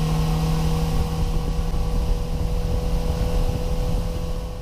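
Small fishing boat's motor running steadily underway, a constant hum with wind rumbling on the microphone; it fades out near the end.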